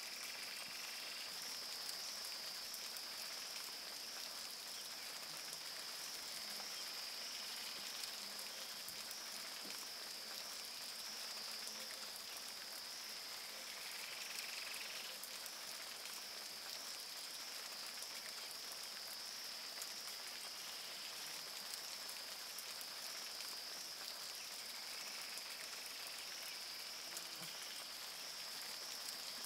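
Faint, steady rain hiss with a continuous high-pitched drone running through it.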